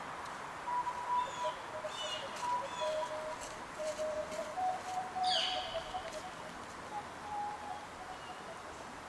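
Wild birds calling in a woodland: short repeated chirps, a quick downward-sweeping call about five seconds in, and thin piping notes, over a steady background hiss.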